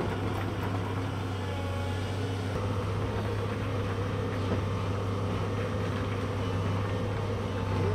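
Diesel engine of a Volvo crawler excavator running steadily under load as the machine works its bucket.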